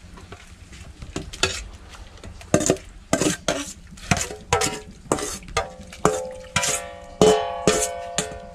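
Metal spoon scraping and clanking against a stainless steel bowl, irregular knocks about two a second, as sliced bamboo shoots are scraped into a pot of boiling water to blanch them. From about six seconds in, each knock leaves the bowl ringing.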